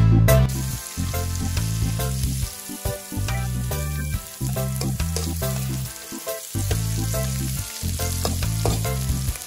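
Diced carrots, onion and garlic sizzling in an aluminium wok over a gas burner, with a metal spoon clinking and scraping against the pan as it stirs. Background music with a bass line runs underneath.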